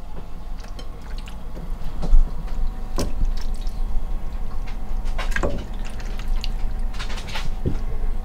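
Raw octopus tentacles dropped one by one into a pot of hot olive oil with garlic and sage. The wet pieces sizzle in the oil, with a few short sharp splats as each goes in.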